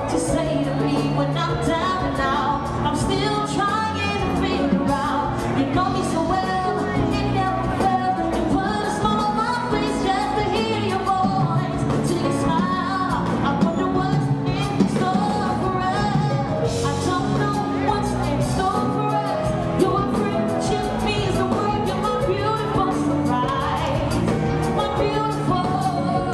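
Live band music: a woman sings lead over electric guitar, bass guitar and a drum kit.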